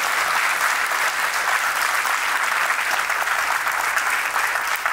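Audience applauding, a dense steady round of clapping from a full hall.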